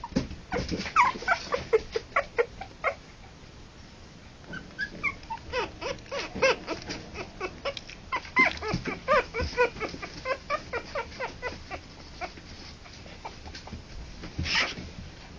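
Three-week-old harlequin poodle puppies whimpering and yipping in many short, overlapping calls, busiest in the first ten seconds and thinning out after. A brief noise near the end.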